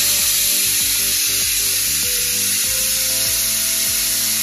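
Steady hiss from a covered pot of spiced water heating to the boil on the stove, with background music of slow held notes underneath.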